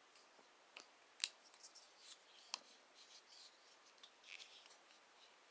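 Faint metallic clicks and light handling rustle from a Schrade ST6CCP Pro Hunter liner-lock folding knife being worked open and shut, with three sharper clicks spread through the first half.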